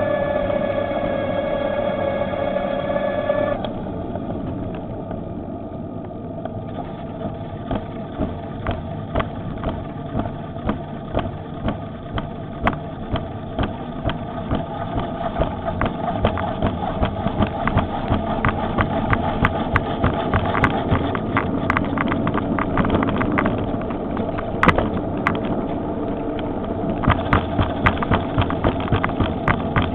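Electric bicycle's motor whining steadily, cutting off sharply about four seconds in. After that comes the ride's rumble of tyres and wind with a steady rattling of clicks, several a second.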